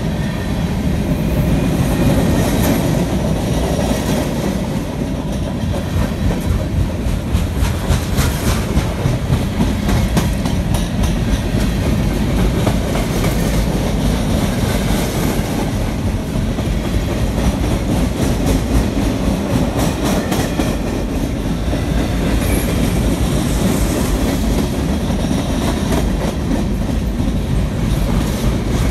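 Freight cars, covered hoppers and boxcars, rolling past at close range: a steady rumble of steel wheels on rail, with repeated clacking as the wheels cross rail joints.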